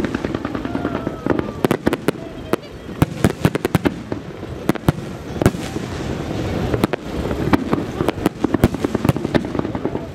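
Aerial fireworks shells bursting in rapid succession: dozens of sharp bangs and cracks, several a second and often in quick clusters, over a continuous rumble and crackle.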